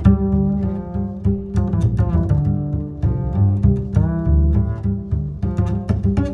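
Background music: plucked and bowed strings over a steady plucked bass line.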